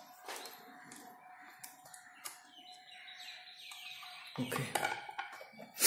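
Faint metal clicks and scrapes of a screwdriver turning a hose clamp on a small electric water pump's hose fitting. Louder handling knocks and rustling come in near the end.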